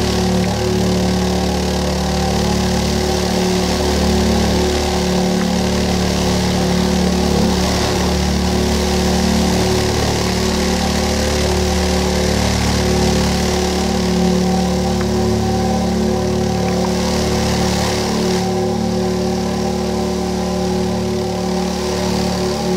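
Loudspeaker driven by a steady low buzzing tone, its cone vibrating a layer of cornflour-and-water slurry.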